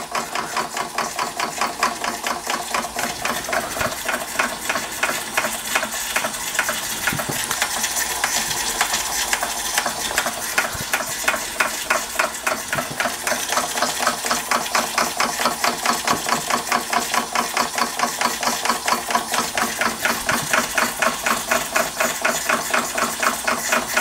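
Empire B-43 model steam engine running, its cylinder giving an even, rapid beat of steam exhaust puffs and mechanical strokes.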